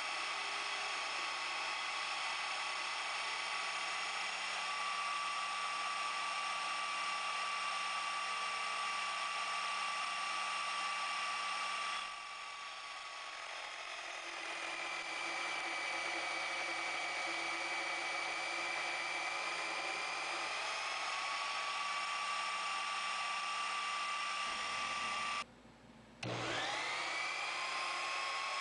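Sherline mini lathe's motor running with a steady high whine. About twelve seconds in, the level dips and the pitch shifts for a while. Near the end the motor stops for under a second, then spins back up with a rising whine.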